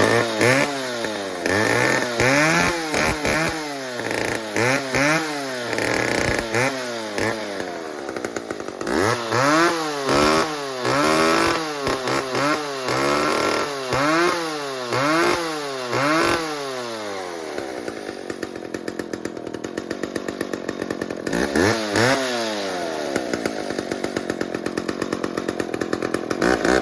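Two-stroke engine of a vintage McCulloch Pro Mac 10-10 chainsaw, running after a cold start: revved up and let back down about a dozen times in quick succession, then settling to a steady idle, with one more rev about two-thirds of the way through. It runs well.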